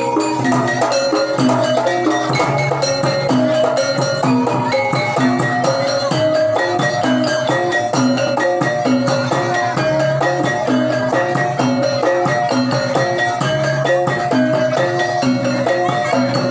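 Javanese gamelan ensemble playing a traditional accompaniment for a horse-dance (jaranan) troupe: tuned metal percussion sounding repeating notes over drums in a steady pattern.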